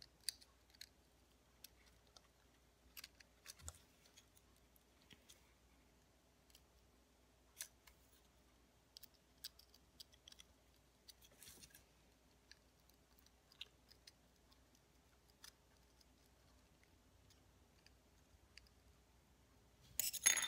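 Faint, scattered small clicks and scratches of a small tool and fingertips working wires into a mini drone's plastic frame, with a brief louder rustle near the end.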